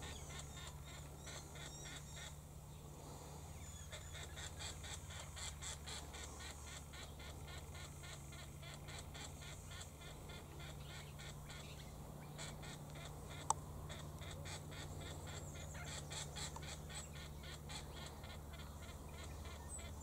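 Faint, rapidly repeated high-pitched calls in clusters, over a steady low hum: a juvenile Australian king parrot begging for food. One sharp click about two-thirds of the way through.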